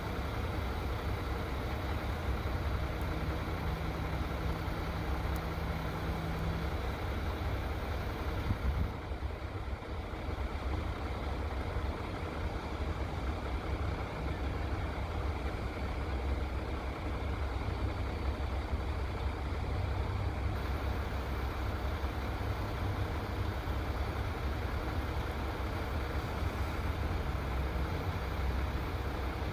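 Steady idling of a crane engine, with a low rumble of wind on the microphone.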